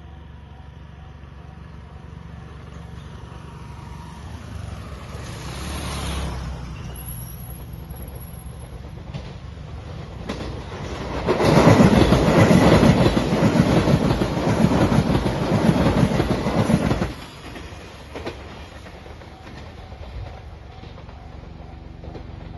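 Shiokaze limited express train passing at speed: a low rumble builds as it approaches, then a loud rapid clatter of wheels over the rails for about six seconds cuts off sharply as it goes by.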